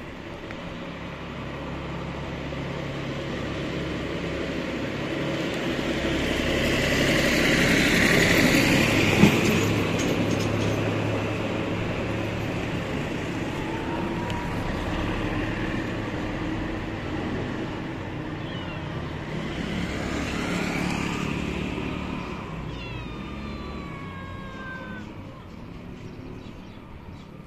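Traffic passing on the street, the noise swelling as a vehicle goes by about a third of the way in and again later. A cat meows a few short falling calls in the second half.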